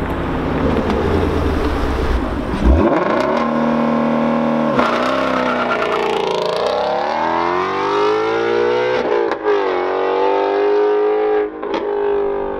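Ford Mustang Shelby GT350's 5.2-litre flat-plane-crank V8 launched hard from a standstill about three seconds in. It then accelerates flat out through the gears, its note climbing and dropping at two upshifts, and fades as the car pulls away.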